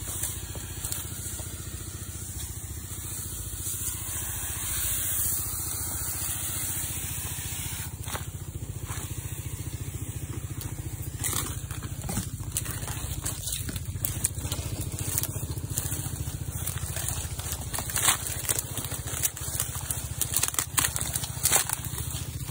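Hissing spray from a power sprayer's hose nozzle over the steady drone of the sprayer's small Robin 3.5 petrol engine. About halfway through, crackling and crunching of dry palm fronds and undergrowth underfoot start up, growing sharper toward the end.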